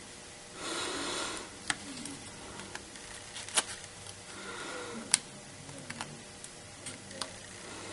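Cardstock being handled and pressed onto a card: a short rustle of paper sliding about half a second in, then a few sharp clicks and light taps as the panel is set down and pressed in place.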